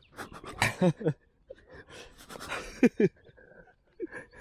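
A man blowing on a forkful of hot stew in a few short breathy puffs, then a brief wordless vocal sound, falling in pitch, about three seconds in as he tastes it.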